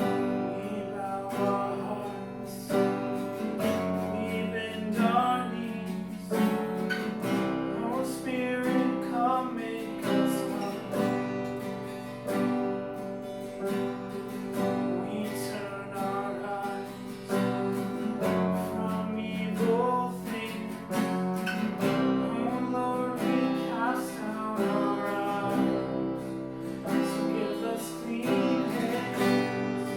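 Acoustic guitar strumming chords, steady music that keeps going.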